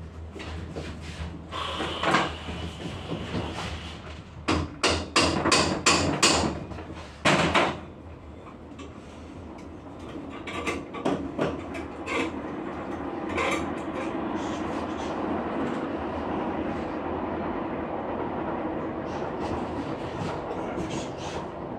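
A run of sharp knocks and taps on a part held in a bench vise, closest together between about four and eight seconds in. After that, a steady, even noise with no separate strokes.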